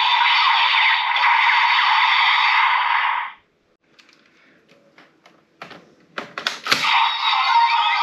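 Electronic sound effects and music from the DX Zombie Raise Buckle toy's small speaker, thin and without bass, cut off suddenly about three seconds in. A few light plastic clicks follow as the toy is handled. A sharp click near the end sets the toy's sound playing again.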